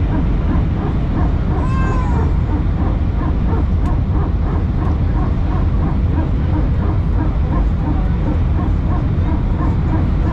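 Airliner cabin noise: a loud, steady low rumble of the engines and airflow, with a faint short chirp repeating a few times a second on top.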